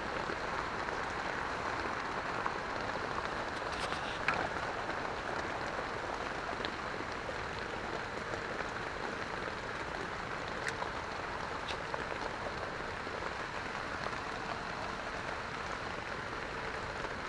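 Heavy rain falling steadily, with a few faint ticks of single drops.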